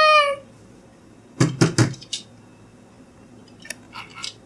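Hard plastic toys clicking and knocking as they are handled and set down: three sharp clicks close together about a second and a half in, and a few fainter ones near the end.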